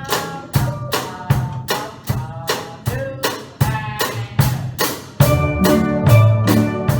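Steel band of steelpans and drum kit playing, with a steady beat of about two and a half strikes a second under the pan notes. About five seconds in the full band comes in louder and fuller.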